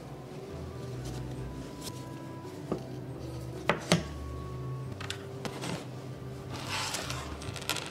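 Light plastic clicks and taps as 3D-printed PLA clock parts, a white dial and a black frame, are pressed and fitted together on a wooden desk. The loudest are two sharp clicks close together about four seconds in, then lighter ticks and a short rubbing scrape near the end.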